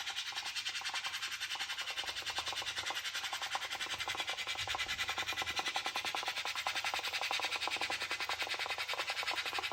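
Rice cooker cooking at the boil: steady bubbling and hissing with a fast, even pulsing several times a second.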